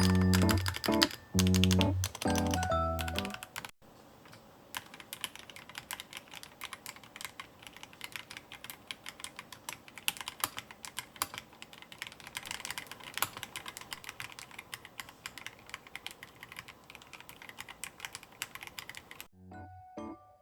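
Typing on an EPOMAKER Mini Cat64 60% mechanical keyboard fitted with AKKO Sakura switches: a quick, continuous run of key clacks. Background music plays briefly at the start, and again near the end.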